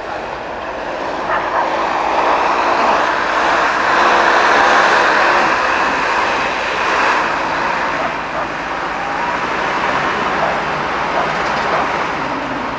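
Off-road 4x4's engine revving hard under load as it ploughs through deep snow, the engine note swelling to its loudest about four seconds in and then easing slightly.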